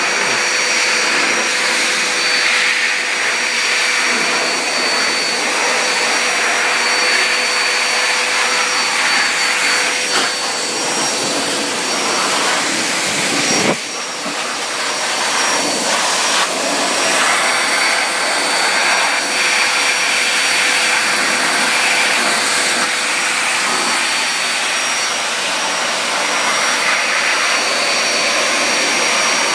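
Pet blow dryer with a hose nozzle running steadily, blowing air onto a wet kitten's fur. It makes a loud, even rush of air with a faint motor whine, and drops briefly about halfway through.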